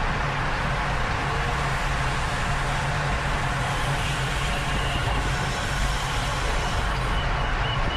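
Steady wind rush and tyre noise on a bicycle-mounted camera while riding in a race, with a constant low hum underneath.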